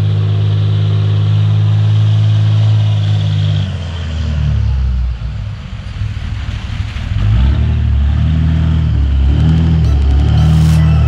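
Diesel engine of heavy equipment running, a steady low drone that drops and thins out about four seconds in, then comes back up and shifts in pitch as the machine works.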